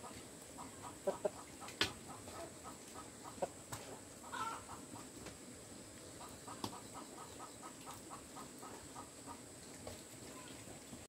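A hen clucking in a steady run of short notes, about three or four a second, with a brief louder call about four seconds in and a few sharp clicks.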